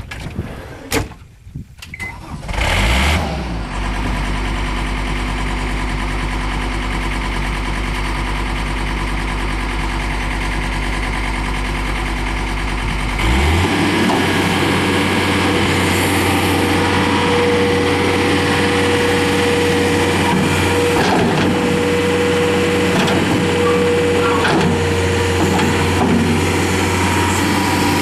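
A few knocks, then about two and a half seconds in the John Deere 325 skid steer's turbo diesel engine cranks briefly and starts, settling into a steady low idle. About thirteen seconds in the engine speed steps up and it runs steadily at higher revs.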